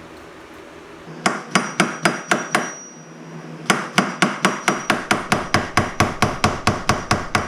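A hammer striking a metal punch tool in rapid blows, about four to five a second. A short run of about six strikes is followed by a brief pause and then a longer run of about sixteen, with a faint metallic ring. The blows are driving the worn factory door hinge pin bushing out of a Jeep Wrangler TJ door hinge.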